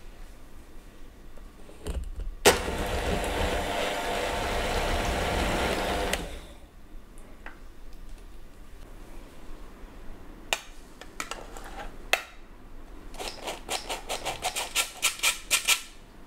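Electric hand mixer running steadily for about four seconds, beating eggs and sugar in a glass bowl; it starts suddenly and stops. Later come two sharp clicks, then a quick run of raspy strokes, about four or five a second and getting louder, from a squeeze-handle metal flour sifter sifting cake flour into the bowl.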